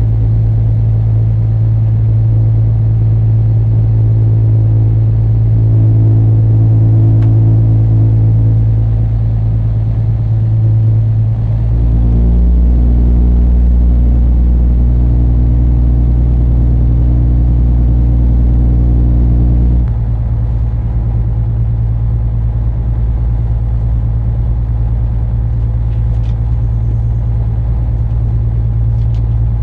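An inland cargo barge's diesel engine running under way with a steady low drone. Its note shifts about twelve seconds in and shifts back about twenty seconds in.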